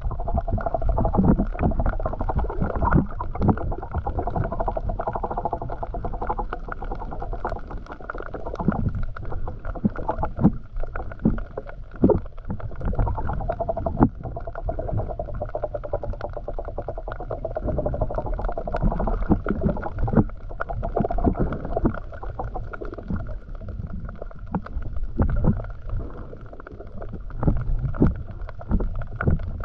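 Muffled underwater sound from a camera held below the surface: water movement with frequent small clicks and knocks. A wavering hum comes and goes.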